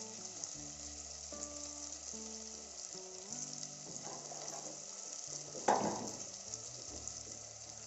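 Freshly added chopped cucumber and other vegetables sizzling in hot spiced oil in a steel pot, a steady frying hiss. Soft background music plays underneath, and a brief louder sound comes about six seconds in.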